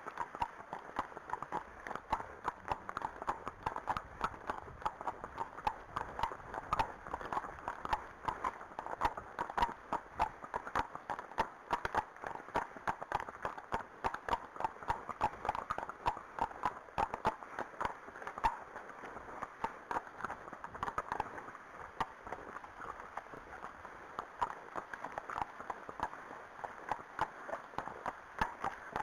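Hooves of two horses, a Friesian and an Arabian, clip-clopping at a walk on a tarmac lane: a steady stream of overlapping hoofbeats.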